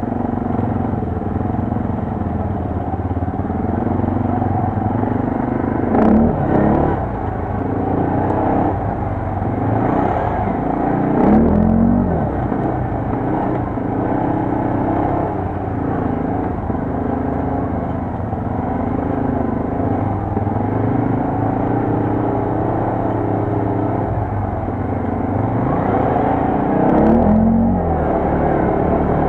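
Quad bike (ATV) engine running under changing throttle, its pitch rising and falling, with three brief harder revs spread through the stretch.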